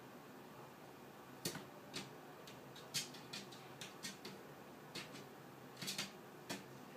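Munchkin cat's paws and claws clicking and tapping on the floor while chasing a laser dot: irregular light clicks starting about a second and a half in, over a faint steady hiss.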